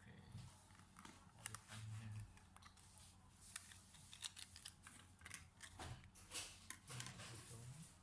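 Faint, irregular small clicks and taps from hands working on a laptop, coming thicker in the second half, over a low hum.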